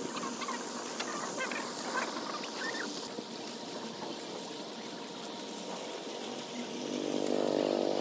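Steady splashing of a pond fountain, with several short bird chirps in the first three seconds. Near the end a low droning sound with many overtones swells for about a second and a half.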